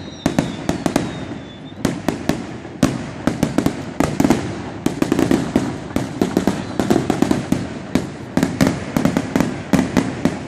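Fireworks going off in rapid succession: a dense run of sharp bangs and crackles several times a second, with a whistling firework that cuts off just under two seconds in.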